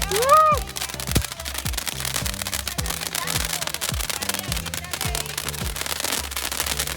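Background music with a deep, falling kick drum about twice a second over a steady bass line. A short whoop rises and falls about half a second in.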